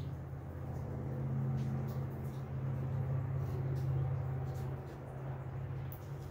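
Steady low mechanical hum of a motor or fan, with a few faint light ticks over it.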